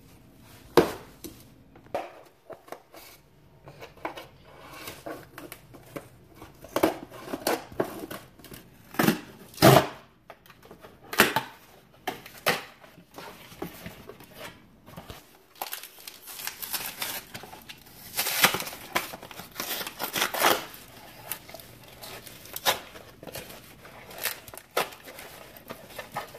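Cardboard boxes of laundry powder being opened by hand: scissors cutting, flaps tearing and rustling, and a plastic bag inside crinkling, in an irregular run of short sharp noises.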